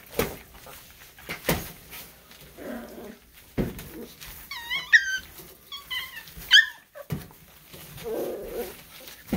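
Miniature schnauzer puppies at play: a run of short, high-pitched yips and squeaky cries about halfway through, among scattered thumps as they tumble.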